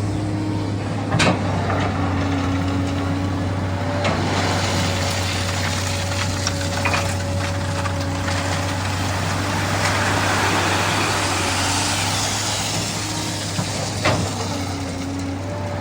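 SANY excavator's diesel engine running steadily with a hydraulic whine that comes and goes, and a sharp knock about a second in and again near the end.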